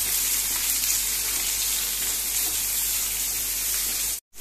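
Chopped onion, green chilli and capsicum sizzling in hot oil in a non-stick pan as they are stirred, a steady hiss. The sound cuts out abruptly for a moment near the end.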